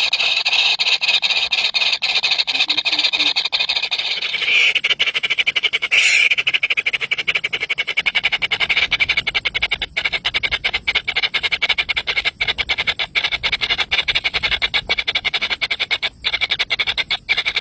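Baby birds begging for food: a constant stream of rapid, high-pitched cheeping calls.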